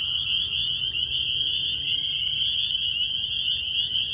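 A dense spring frog chorus of spring peepers and chorus frogs calling together. It forms a steady, high-pitched shrill wall of overlapping peeps and trills.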